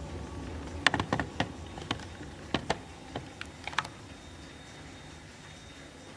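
About a dozen light, sharp clicks at irregular intervals over roughly three seconds, then only a low steady hum.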